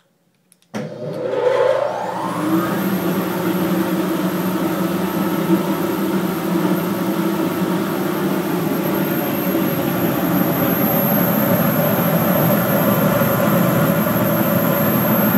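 Oneida 2 HP Dust Gorilla cyclone dust collector switched on about a second in: the motor and impeller spin up with a rising whine over about two seconds, then run steadily and loud, with a thin high whine on top.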